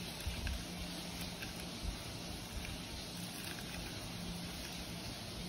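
Steady low hiss and hum of room noise, with a few soft, faint ticks as fingers crush roasted garlic and chillies into mashed red lentils on a ceramic plate.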